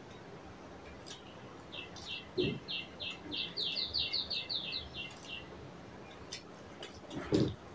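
A bird calls a quick series of about fourteen short high chirps, roughly four a second, starting about two seconds in and lasting some four seconds. Faint clicks of chewing are heard around it, and a short low thud near the end is the loudest sound.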